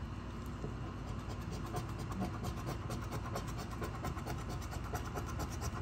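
A coin scraping the coating off a scratch-off lottery ticket lying on a table, in quick repeated strokes.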